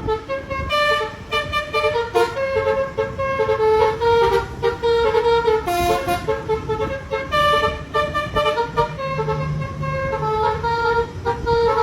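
Telolet bus horn, a multi-tone musical air horn, playing a quick melody of changing notes over the low rumble of the bus.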